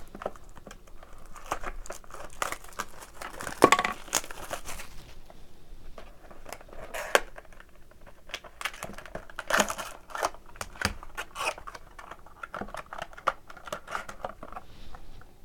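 Wrapper and cardboard packaging of a trading-card hobby box crinkling and tearing as it is opened by hand, in irregular crackles and short rips.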